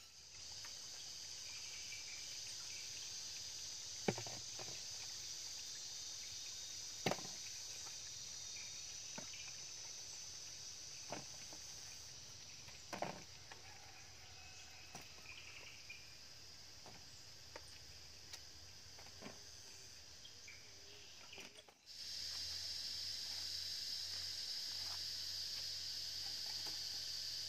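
Battered fritters deep-frying in a pan of oil, a steady sizzle, with a few sharp metal clicks of tongs against the pan. About 22 s in the sound cuts to a louder, steady chirring of crickets.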